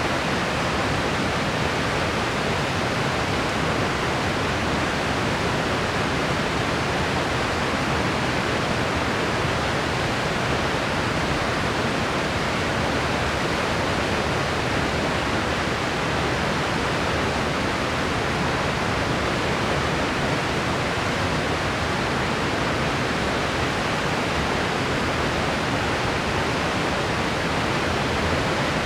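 Steady, unchanging white noise: an even hiss with no variation.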